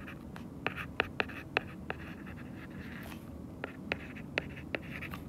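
Stylus tapping and clicking on a tablet screen while handwriting words: a string of sharp, quick taps with a short pause around the middle.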